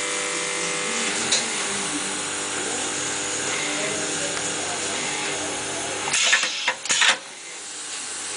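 Electro-pneumatic wire stripper: a steady machine hum with a single click about a second in, then near the end a quick run of loud air-driven strokes with hissing exhaust, after which the hum drops.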